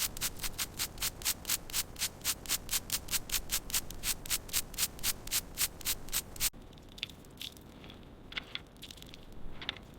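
Hand sanding in quick back-and-forth strokes, about four a second, stopping abruptly about six and a half seconds in. It is followed by a few scattered short, high scrapes.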